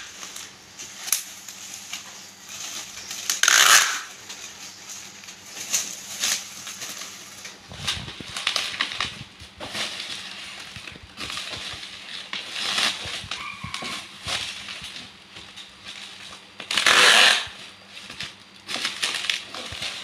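Bubble wrap crinkling and crackling as it is handled and pressed around a wire cage, with packing tape pulled off a handheld dispenser in loud rasping strips, the loudest about three and a half seconds in and again about three seconds before the end.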